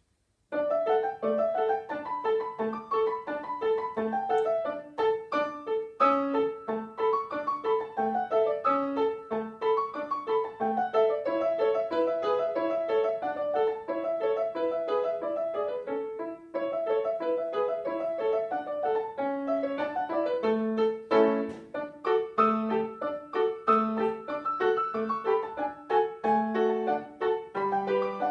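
Grand piano played solo, starting about half a second in: a steadily repeated middle note pulses under a melody that moves up and down, with lower notes sounding in between.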